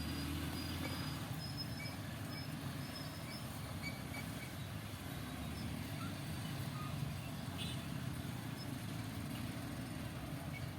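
Steady low rumble of an EMU electric local train on the move, with a few faint high chirps over it.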